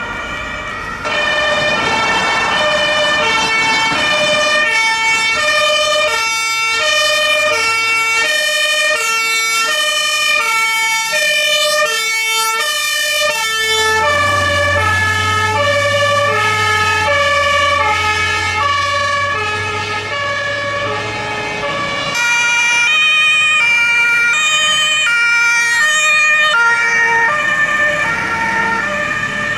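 Several two-tone fire engine sirens (German Martinshorn) sounding at once and out of step, each stepping back and forth between two pitches. A deep vehicle engine rumble joins in about halfway through.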